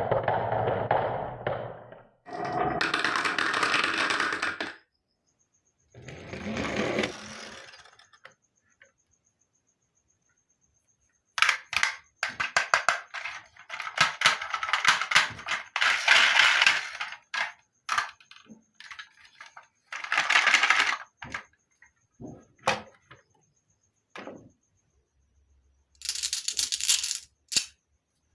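Marbles rolling down a HABA marble run, with several runs of a few seconds each of continuous rolling and many sharp clacks as they drop and hit the track pieces.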